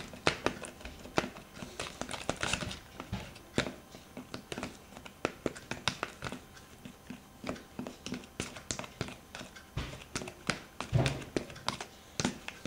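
Metal spoon stirring flour into a thick syrup mix in a plastic tub: a quick, irregular run of light taps and clicks as the spoon knocks against the tub's sides and bottom.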